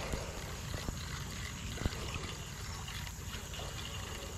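Spinning rod and reel being worked to bring in a hooked turtle: faint reel and handling clicks, one sharper click about two seconds in, over a low steady rumble.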